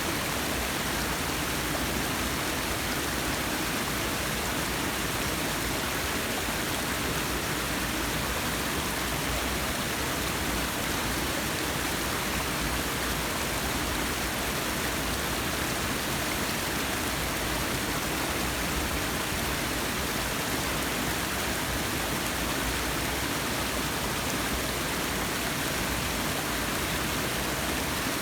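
Forest waterfall: a steady, even rush of falling water.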